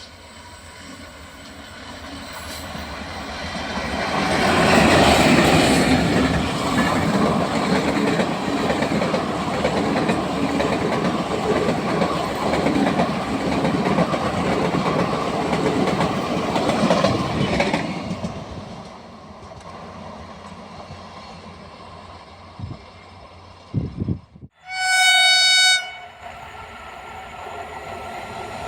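An Indian train passing at speed: the wheel and carriage noise builds over a few seconds, stays loud for about twelve seconds, then fades. Near the end, after a brief dropout, a train horn blows once for about a second and a half, and train noise begins to build again.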